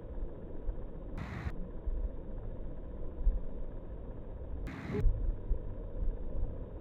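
Slowed-down outdoor storm ambience: a low, muffled rumble with no sharp sounds, distorted by the slow-motion speed change. It is broken twice by short snatches at normal speed, about a second in and again about five seconds in.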